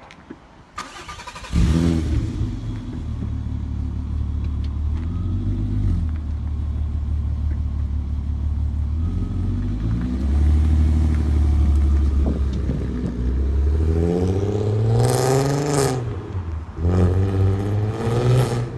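VW Golf R32's 3.2-litre VR6 engine through a non-resonated Milltek exhaust. It fires up about a second and a half in and idles steadily, then is revved twice near the end, the pitch rising and falling each time.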